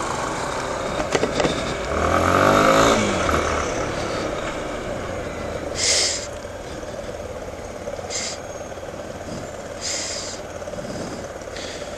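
Motorcycle engine running in city traffic, revving up with a rising pitch about two seconds in, then settling to a lower steady running sound. Three short hisses come near the middle and end.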